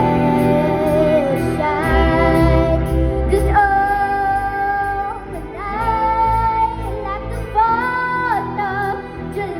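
A young girl singing lead, with long held notes, backed by a band of drums, guitars and keyboards; the low beat drops away about halfway through, leaving the voice over lighter backing.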